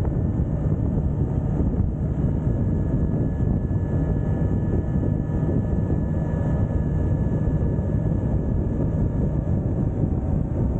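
Motorcycle riding along at a steady speed: a steady low rumble of engine and road noise mixed with wind buffeting the microphone.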